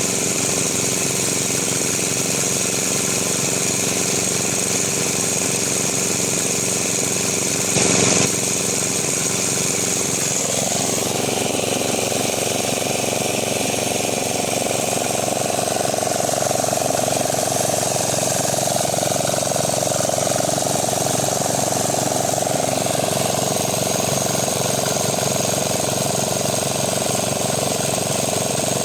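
A small engine running steadily, with a short loud knock about eight seconds in and a slight change in its tone a few seconds later.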